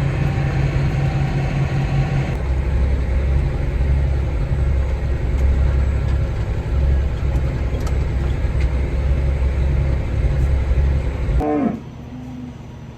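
A heavy vehicle engine running steadily, its pitch dropping about two seconds in, then cutting off abruptly near the end. A brief cow moo falling in pitch follows.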